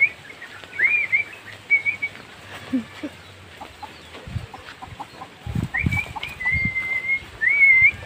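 A person whistling to call a young pet starling: a quick run of short rising whistles, a pause, then a rising whistle and a long held note near the end. A few dull low thumps come in the pause.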